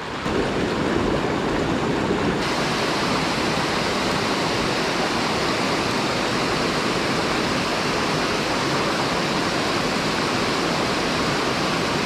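Mountain stream water rushing, a steady, even noise.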